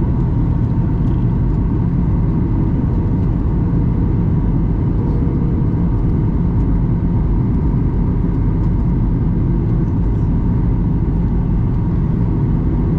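Steady cabin rumble inside a Boeing 737-800 in flight, engine and airflow noise, with a faint steady hum over it.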